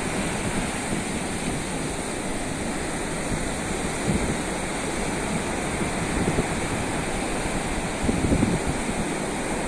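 Ocean surf breaking and washing up a flat beach, a steady rushing noise, with wind buffeting the microphone and a few louder surges about four seconds in and near the end.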